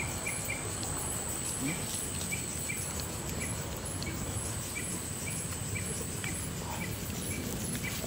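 Night insects chirping: a steady, high-pitched insect trill that fades out about six and a half seconds in, over short chirps roughly twice a second.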